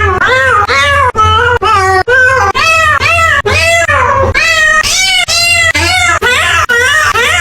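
A quick run of cat meows, about two to three a second, each rising and falling in pitch, set to music as a meme-style meowing tune over a steady low bass.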